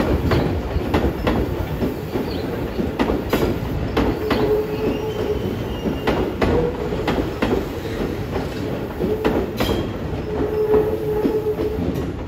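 Tobu 10030 series electric train pulling out of a station: its wheels click over rail joints and points in an uneven series of clacks over a steady low rumble. A brief wheel squeal comes about four seconds in and again near the end.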